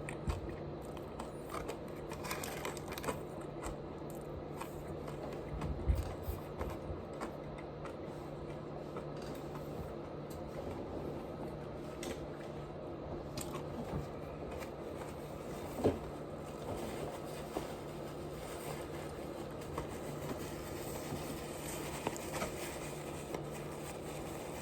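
Close-up eating sounds of fried chicken being chewed: quiet munching with scattered small crunches and clicks, and a couple of louder knocks about 6 and 16 seconds in, over a steady low hum.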